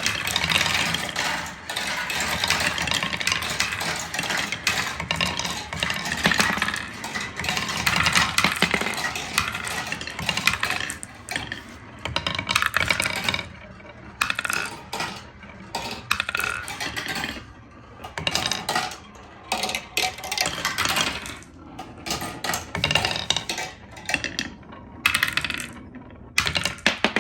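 Balls rolling and clattering down wooden marble-run slopes: a dense, steady rattle of many clicks at first, thinning after about ten seconds into separate runs of clicks with short gaps between them.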